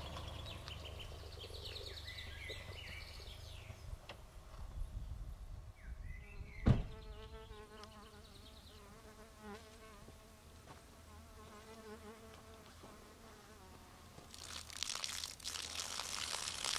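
A car driving away fades out, then a single sharp knock sounds about seven seconds in, like a car door shutting. After it, a fly buzzes faintly with a wavering pitch, and a rustling noise rises near the end.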